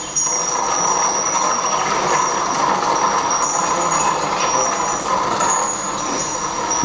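A film soundtrack played over loudspeakers in a hall: a steady rushing noise with no words, and a thin high whine that comes and goes.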